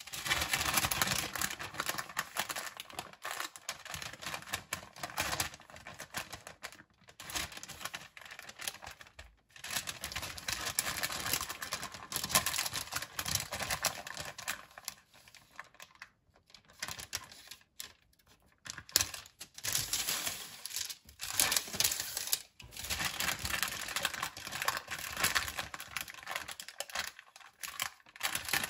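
Baking paper crinkling and rustling under hands folding the edge of a buttery shortcrust dough, in uneven crackly spells broken by short pauses.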